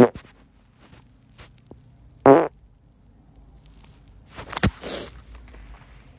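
A short, pitched fart about two seconds in, followed a couple of seconds later by a brief noisy burst.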